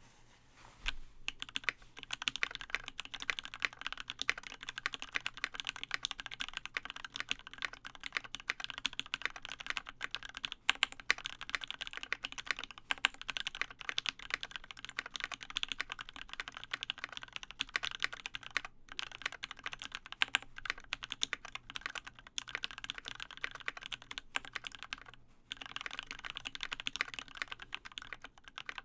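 Continuous typing on a MakerKeyboards Scarlet custom mechanical keyboard with lubed Alpaca linear switches, a POM plate and ABS keycaps: a fast, irregular stream of keystroke clacks that starts about a second in and breaks off twice briefly.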